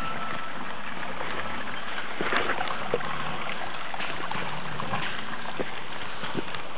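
Water running and trickling over the rocks of a creek bed, a steady rushing sound, with scattered light clicks and knocks.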